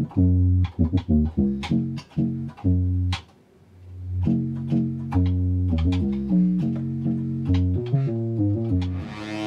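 Korg MS-10 monophonic analog synthesizer playing a run of short, low bass notes, each with a sharp attack. About three seconds in there is a brief pause, followed by longer, more connected notes, and the tone turns brighter near the end. Each key press retriggers the envelope, a sign that it works again now that the corroded trigger-in switching jack has been cleaned.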